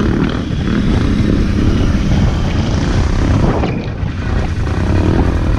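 ATV engine running steadily as the quad rides through mud, a loud low rumble.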